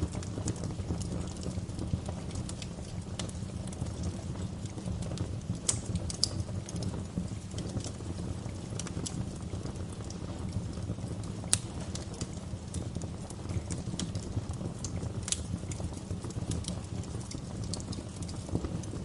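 Wood fire crackling in a fireplace: a steady low rumble of the flames with irregular sharp pops and snaps, a few of them louder.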